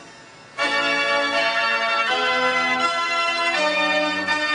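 Organ music of held notes and chords that change about once a second, starting again after a short dip in level about half a second in.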